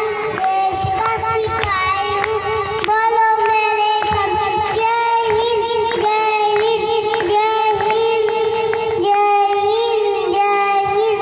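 A young boy singing into a microphone through a PA, in a high child's voice with long held notes.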